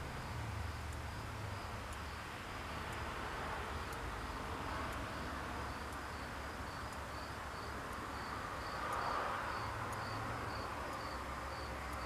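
A cricket chirping in a steady rhythm, about two to three high chirps a second, over a low background rumble.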